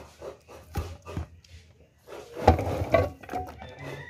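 Chopped roast pork pieces tipped into an aluminium cooking pot: a run of knocks and scrapes as the meat drops in and rubs against the pot and the plastic container, loudest about two and a half seconds in.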